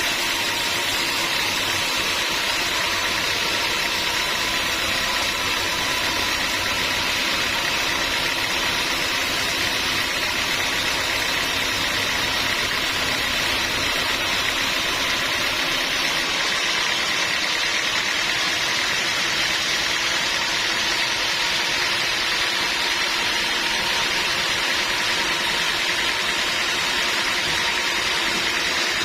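Sawmill machinery running steadily with an even mechanical drone; the sound shifts slightly about sixteen seconds in.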